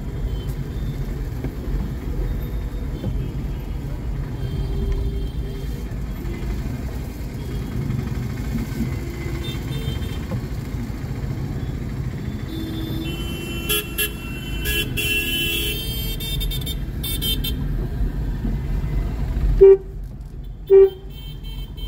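Steady engine and road rumble of a vehicle moving through town traffic, with other vehicles' horns honking in a cluster about two-thirds of the way through. Near the end come two short, loud toots about a second apart.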